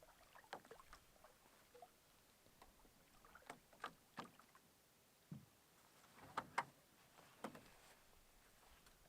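Faint canoe paddling sounds: scattered light knocks of the paddle against the hull and soft water noise.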